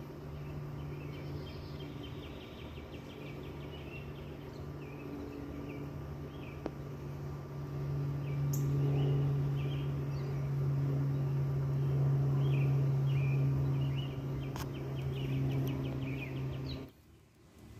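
Small birds chirping and trilling over a steady low hum that swells in the middle, then everything cuts off suddenly near the end.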